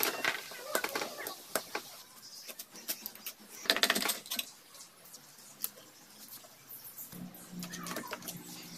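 Metal hand tools and engine parts clinking and rattling as a small single-cylinder engine's cylinder head is taken apart, with scattered sharp clicks. The loudest is a quick cluster of rattling clicks just under four seconds in.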